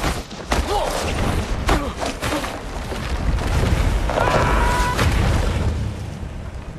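Horror-film sound effects of a heavy tree trunk crashing down: a sudden crash and deep rumble with several sharp knocks and short cries. About four seconds in comes a man's scream, and the sound then fades away.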